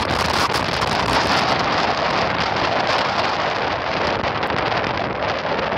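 Strong wind buffeting the microphone in a steady rush, with surf breaking on the beach beneath it.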